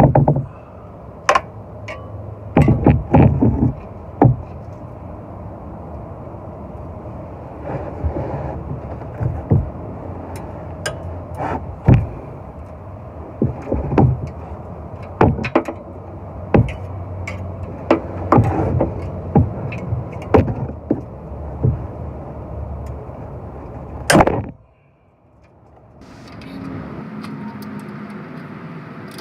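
Hand tools clanking and knocking against metal exhaust parts under a car as bolts are worked loose: sharp, irregular knocks over a steady background rumble, stopping abruptly about 24 seconds in.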